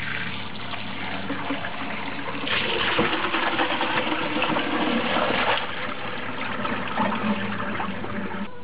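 Water pouring and splashing as the salty soaking water is drained off cut herring pieces, heaviest through the middle.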